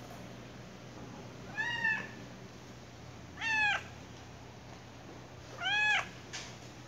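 Ginger tabby cat meowing three times, about two seconds apart, each meow short and rising then falling in pitch.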